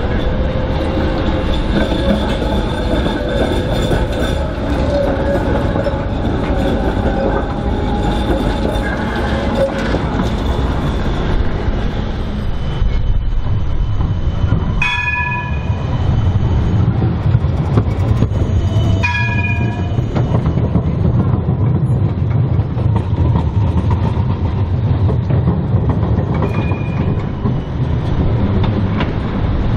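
GVB trams running through tight curves in the street track. For the first ten seconds or so the steel wheels squeal on the rails with wavering tones. After that a tram rumbles past, and its warning bell rings in short strikes about four seconds apart, then once more faintly near the end.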